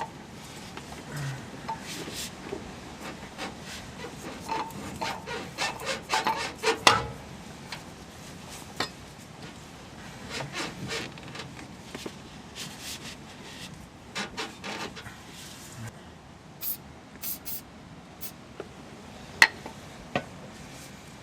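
Irregular rubbing and scraping with scattered clicks and knocks as a new heavy-duty shock absorber, its rubber bushing lubricated with silicone spray, is worked by hand onto its mount on a 1993 Toyota pickup's rear suspension.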